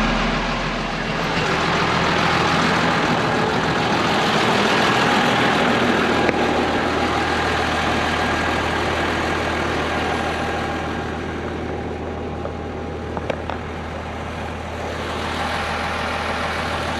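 Big Valtra tractor's diesel engine running at a steady speed while spreading dung, with a sharp knock about six seconds in.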